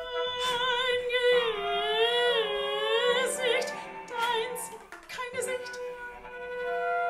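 Contemporary classical vocal music: a female operatic voice sings with wide vibrato, sliding in pitch, over a long held instrumental note. The voice drops out about two-thirds of the way through, and the held instrumental tones carry on.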